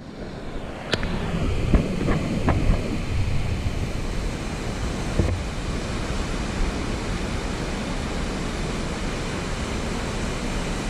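Steady rushing of Brownstone Falls, a waterfall, with a few light knocks in the first couple of seconds.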